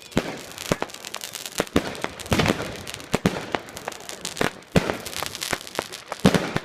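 Fireworks going off: many sharp bangs and pops at irregular intervals, some close together, with the loudest bangs trailing off in echoes.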